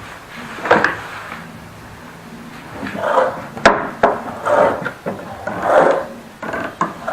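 Wooden workpieces and a tool being handled on a workbench: a knock about a second in, then a run of short scrapes and knocks, with one sharp click in the middle.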